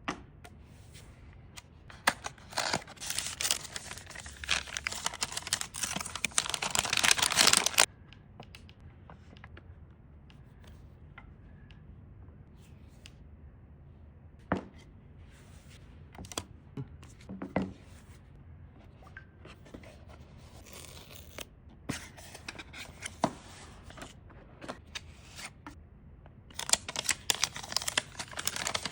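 Phone packaging being opened: a long stretch of tearing and rustling paper or plastic, then scattered light taps and clicks from parts being handled, and another burst of rustling near the end.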